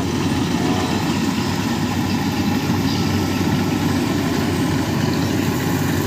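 Rice combine harvester's engine running steadily, a continuous, even mechanical drone.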